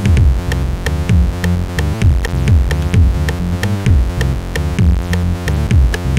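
Electronic background music: a drum-machine kick beat under steady synthesizer chords.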